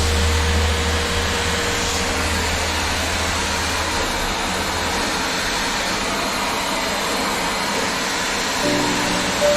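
Hoover 1400 W vacuum cleaner running steadily with a faint whine over its rushing airflow. Music comes in near the end.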